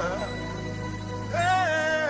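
Live gospel worship music: a band's held bass and keyboard chord sustains, and about a second and a half in a voice comes in singing a held, wavering note.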